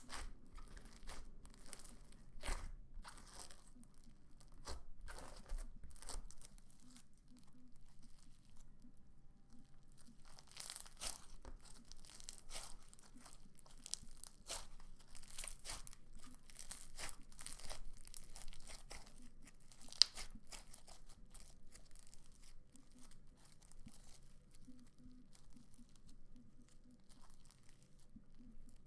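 Foam slime with foam beads being squished and stretched in the hands, giving faint, irregular crunching and crackling clicks, with one sharper click about twenty seconds in.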